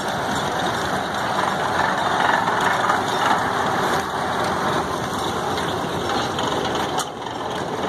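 Ford Model A doodlebug tractor (a Sears and Roebuck conversion kit) with its four-cylinder engine running as it drives close past, loudest about two to three seconds in and then easing off as it moves away.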